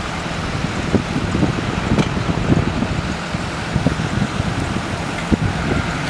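Wind buffeting the microphone in uneven low rumbles, over a steady hiss of street traffic noise.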